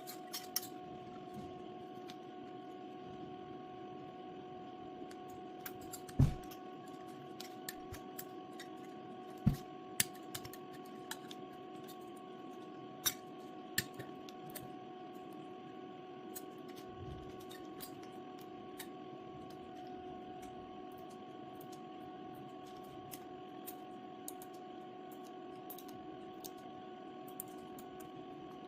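Scattered small clicks and taps of parts being handled on a workbench, with a few louder knocks, over a steady electrical hum.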